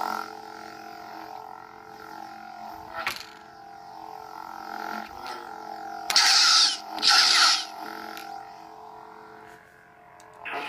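Lightsaber sound board (Ultrasound 2.5) playing the blade's steady electric hum through the hilt speaker, swelling briefly a few times, with two loud hissing bursts of about half a second each, six and seven seconds in.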